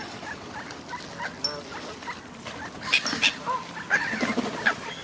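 Canada geese and ducks calling among a feeding flock: scattered short honks and quacks, with a few sharp clicks about three seconds in.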